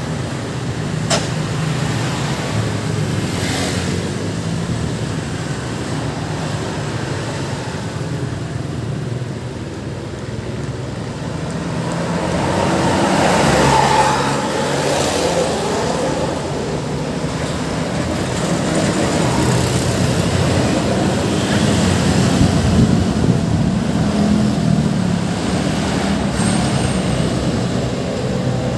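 Steady road traffic: cars and other motor vehicles passing continuously, with one passing closer and louder about halfway through.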